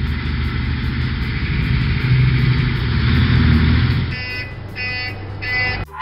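Heavy tractor engine sound effect running and swelling louder, then dying away about four seconds in, followed by three short beeps in quick succession.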